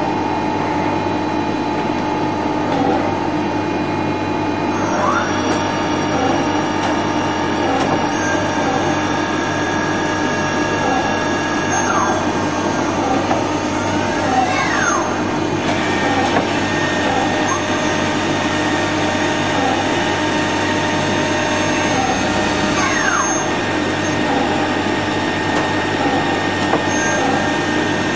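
INDEX G200 CNC lathe running a machining cycle: a steady mechanical hum with several whining tones, some of which rise or fall in pitch a few times as the machine works.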